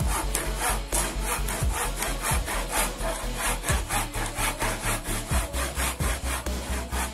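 Wooden-handled hand saw cutting through a block of wood in quick, even back-and-forth strokes, about four a second.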